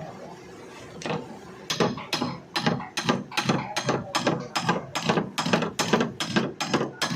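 Rapid mechanical clicking, about four clicks a second, ratchet-like, starting a second or so in after a single click.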